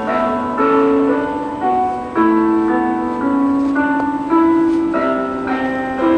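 Piano music: a melody of separate notes, each struck and fading, one about every half second.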